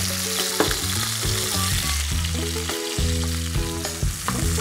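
Veal steaks sizzling as they fry in olive oil in a pan, a steady hiss, over background music.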